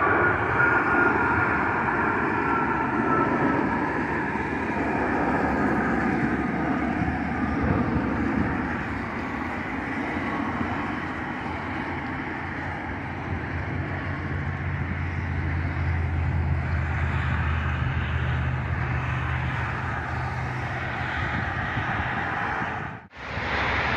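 Jet airliner flying over, a steady rush of engine noise with a high whine that falls slowly in pitch over the first few seconds. A low steady hum joins about halfway through. The sound breaks off abruptly about a second before the end, then resumes.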